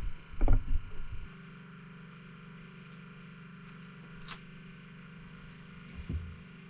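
A few low thumps in the first second, then a steady low hum with a single sharp click midway and another thump near the end.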